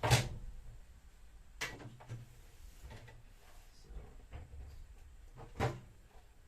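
Knocks and clatter of tools and hinge hardware being handled while the hinge screws on a fridge door are taken out. There are three sharp knocks, the loudest right at the start, one about a second and a half in and one near the end, with fainter taps between.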